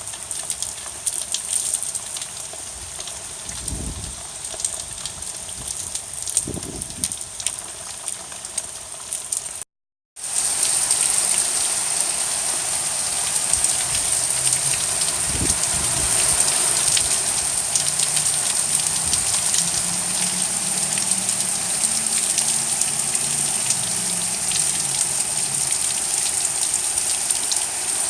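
Heavy hurricane rain falling steadily. It cuts out briefly about ten seconds in and comes back louder.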